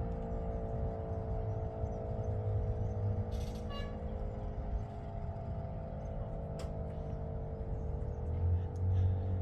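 Darley Model 5 outdoor warning siren sounding a steady low tone during its noon test, with the low rumble of road traffic growing near the end.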